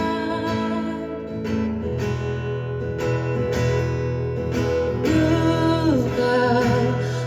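Live acoustic song: a strummed acoustic guitar with a voice singing over it, the melody gliding down near the end.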